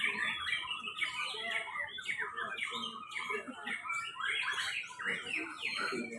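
Many caged white-rumped shamas (murai batu) singing at once, a dense overlapping tangle of short whistled phrases and sweeping notes with no pause.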